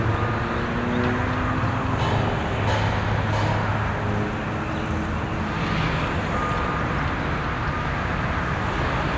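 Steady rush of motor-vehicle traffic and engine noise, with a low engine hum that comes and goes.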